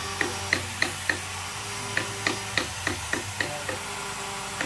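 Paintbrush dabbing wet finish into carved wood: a run of quick, light taps, about two to three a second, pausing briefly about a second and a half in and again near the end.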